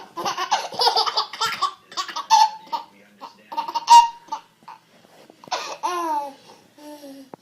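A baby laughing: a run of quick, high-pitched bursts over the first two seconds, then shorter separate laughs and a falling squeal near the end.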